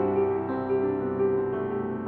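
Piano music, with held notes that overlap as the melody steps from one pitch to the next.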